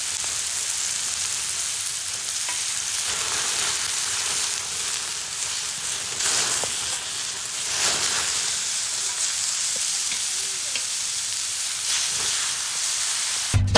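Food sizzling in a pan: a steady frying hiss that swells briefly a few times.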